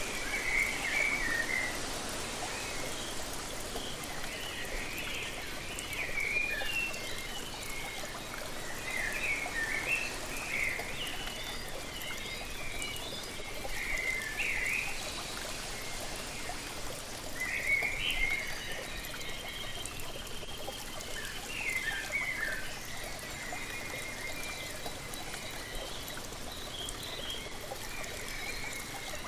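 Steady rush of a waterfall, with small songbirds chirping and singing over it in scattered bursts of quick high notes, busiest about ten, fifteen and eighteen seconds in.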